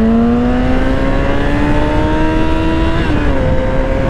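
Yamaha sport bike engine accelerating, its pitch climbing steadily, then dipping about three seconds in and holding level. Wind rushes over the microphone throughout.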